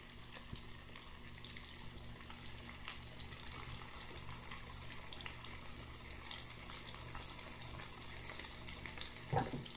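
Boneless chicken breast pieces sizzling in oil in a frying pan, a steady quiet crackle over a low hum.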